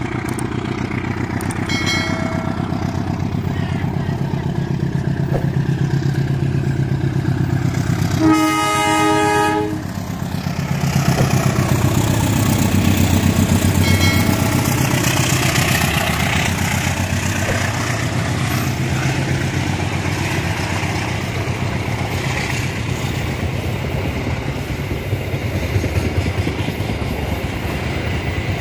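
Diesel locomotive running past with its engine humming low, sounding its horn: one loud blast lasting over a second about eight seconds in, with two shorter, fainter toots near 2 s and 14 s. From about 11 s on, the coaches it hauls roll past with a steady rumble and wheel clatter on the rails.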